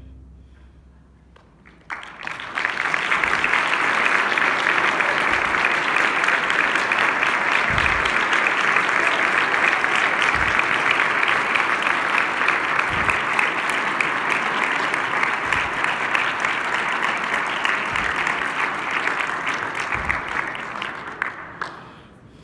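A large audience applauding steadily after a brief hush. The clapping begins about two seconds in and fades away near the end.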